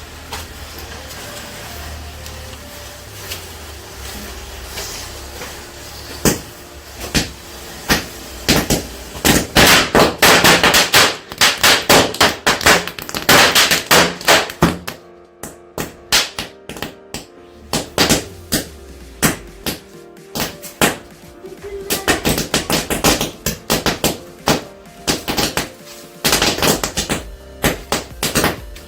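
Small firecrackers going off in a long irregular run of sharp bangs, preceded by a steady hiss. The bangs come thickest a few seconds in, stop briefly, then start again.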